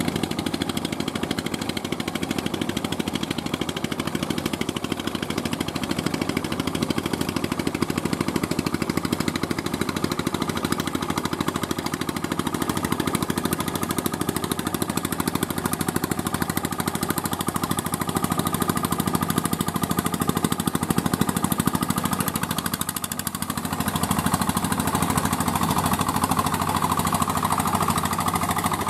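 Small single-cylinder diesel engines of mini paddy tillers running steadily under load, a rapid, even knocking chug. About three-quarters of the way through, the sound dips briefly, then comes back louder and brighter as a nearer tiller dominates.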